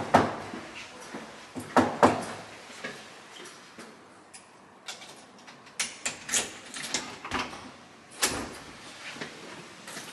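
A door and things being handled: a string of sharp knocks and clacks, loudest at the start and about two seconds in, with a cluster of lighter clacks around six to eight seconds.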